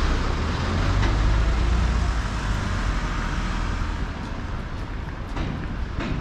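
City street traffic: a motor vehicle's low engine rumble close by, fading after about four seconds, over steady road noise.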